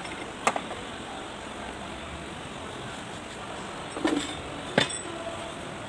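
A few sharp metallic clinks and knocks during hands-on repair work: one about half a second in, then two close together near the end, over a steady background hiss.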